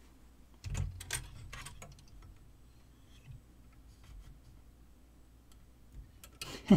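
A few light clicks and taps of a small metal tool and screw against the metal chassis of a TEAC A-103 cassette deck, mostly about a second in, followed by faint scattered ticks.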